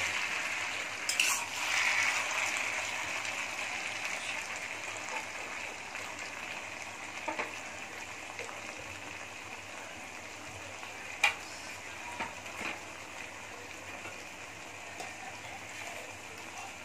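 Sliced potatoes sizzling in oil in a wok while a metal spatula stirs and scrapes them, clicking against the pan now and then. The sizzle is strongest at first and slowly dies down, and the loudest sharp click comes about eleven seconds in.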